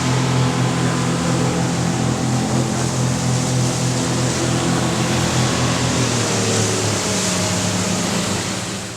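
Motorboat engine running steadily at speed over the rush of wind and water. Its pitch drops about six seconds in as the engine eases off.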